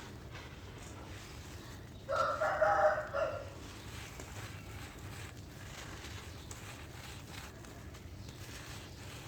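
A rooster crowing once, one pitched call of about a second and a half starting about two seconds in, over a steady low background hiss.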